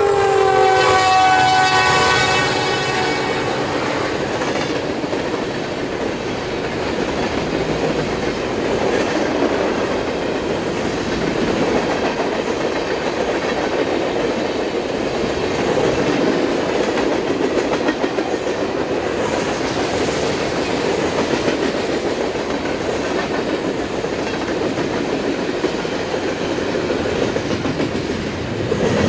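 Norfolk Southern train passing close by. The locomotive's air horn sounds a chord that ends about two seconds in, then the cars roll past with wheels clattering on the rails.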